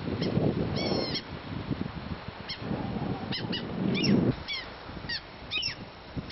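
Mew gulls and common terns giving short, high, arching cries, about eight in a few seconds, in alarm at people close by. Bursts of low rumble lie under the calls near the start and around four seconds in.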